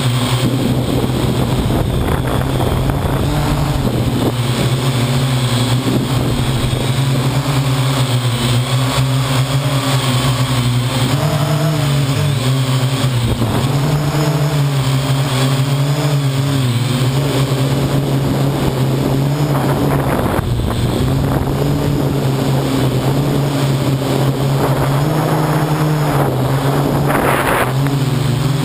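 Parrot AR.Drone quadcopter's electric motors and propellers running in flight, heard up close from the onboard camera: a steady buzzing hum whose pitch shifts slightly as the drone manoeuvres, with a couple of brief rushes of air noise.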